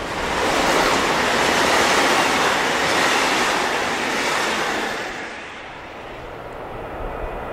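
Freight train wagons rolling past at speed, a steady rush of wheels on rails. The last log-loaded stake wagons pass, and the noise fades away about five seconds in.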